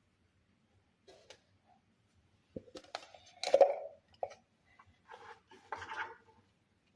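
Kitchen clatter: a scattered series of short knocks and clinks of dishes and utensils being handled, loudest about halfway through.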